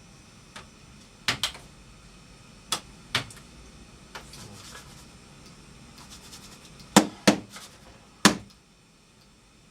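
A series of sharp, separate knocks and clacks of hard objects, irregularly spaced, about nine in all, with the loudest three coming close together late on.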